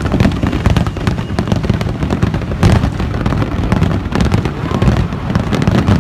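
Fireworks display: a dense barrage of aerial shells bursting, many rapid overlapping bangs with no pause between them.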